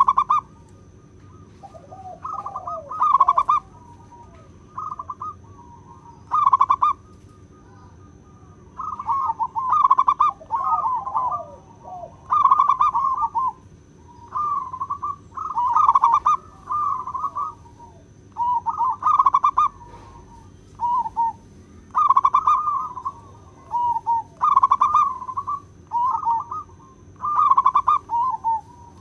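Zebra dove (perkutut) cooing over and over: a run of short, trilling coo phrases, each under a second long, with brief pauses between them.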